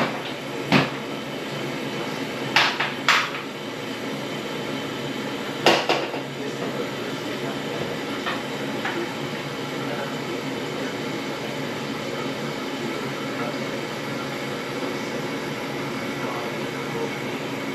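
A steady rushing noise with a few sharp clinks and knocks in the first six seconds.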